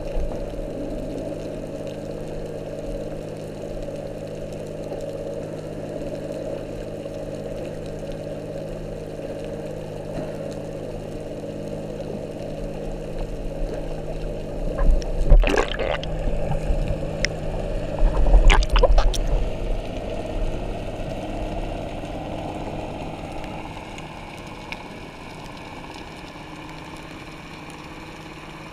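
Underwater sound of a boat's engine: a steady low hum of several tones carried through the water. Two short, loud bursts of knocking and rushing noise come about halfway through, and the hum grows quieter in the last few seconds.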